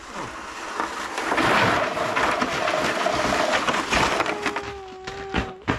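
A plastic steering sled carrying a child slides down over snow: a scraping hiss of the hull on the snow that builds as it comes close and eases as it slows to a stop. Near the end a couple of steady high tones and a few knocks.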